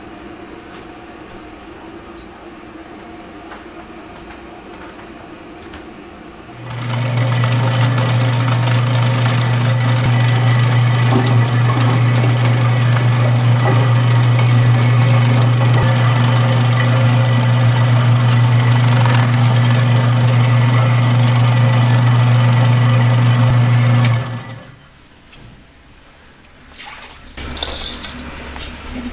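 A machine runs with a strong steady low hum over a rushing noise, starting sharply about seven seconds in and cutting off abruptly some seventeen seconds later.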